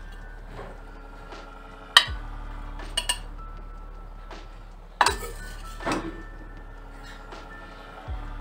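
Metal spoon scooping fried rice out of a nonstick kadai onto a plate: a few sharp clinks and scrapes of metal on the pan and plate, the loudest about two seconds in and again about five seconds in.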